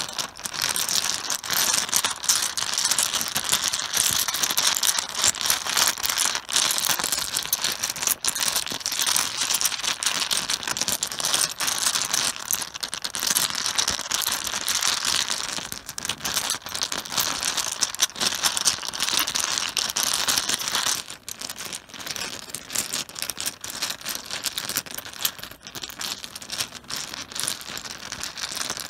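Mahjong tiles clattering against one another on a cloth-covered table: dense, continuous clicking, a little quieter from about two-thirds of the way through.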